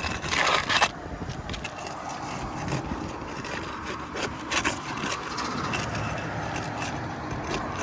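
The sealant strips of asphalt shingles are pried loose and scraped apart, breaking the shingle seals. A louder burst of scraping comes in the first second, then steady rough scraping with one sharp stroke a little past the middle.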